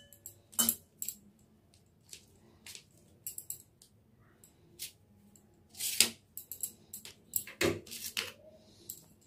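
Light, scattered clinks and taps of kitchen utensils and a glass bowl being handled, with a few louder clinks in the second half.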